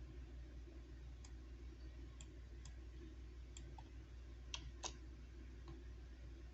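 A handful of faint, irregular clicks over a steady low hum, two of them louder and close together a little past the middle.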